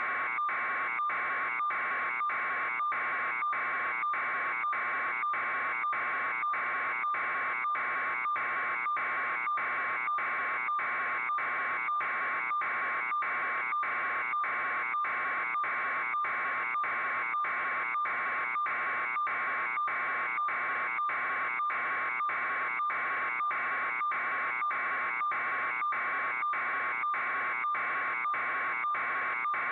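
Steady, evenly pulsing electronic buzz, a little under two pulses a second, unchanging throughout, like an alarm buzzer on the audio feed.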